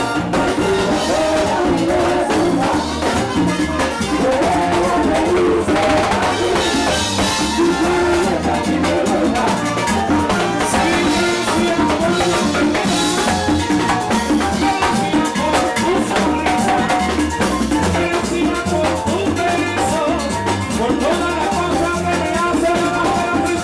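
Live Puerto Rican plena band playing: panderos, the plena hand frame drums, beat out a steady rhythm over drum kit and pitched instruments.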